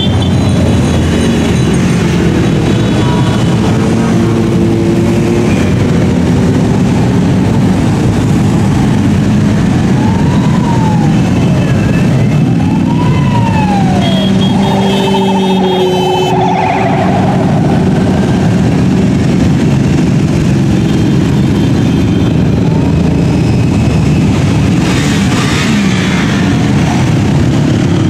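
Many motorcycle engines running together as a large column of motorbikes rides past, a dense steady rumble. About a third of the way in, a police car siren sounds two rising-and-falling wails, followed by a brief rapid warble.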